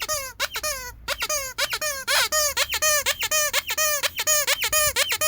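Rubber squeaky dog toy squeezed over and over, about four short squeaks a second, each a pitched squeal that bends in pitch.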